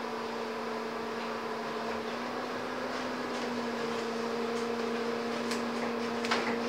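Scania N230UD double-decker bus heard from inside the cabin while under way: a steady engine and driveline hum with a whining tone, and a few sharp clicks or rattles near the end.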